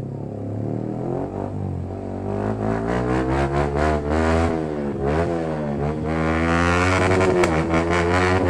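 Yamaha R15M's single-cylinder engine through a loud aftermarket full exhaust, ridden slowly with the throttle opened and eased again and again, so its droning note rises and falls. It grows louder from about two seconds in, with a few sharp pops near the end.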